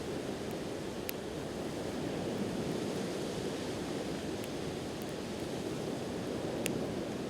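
Steady wash of sea surf, with a few sharp pops from a crackling campfire: about a second in, faintly near the middle, and again near the end.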